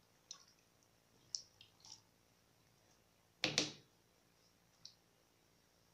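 Wooden spoon clicking and scraping against a metal cooking pot (sufuria) while stirring rice and chicken in broth: a few soft clicks, then one louder knock about three and a half seconds in.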